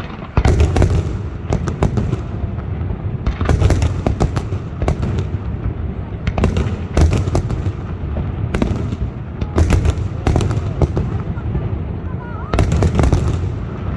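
Festival fireworks display: aerial shells bursting in rapid succession, sharp bangs and crackles every second or two over a continuous low rumble.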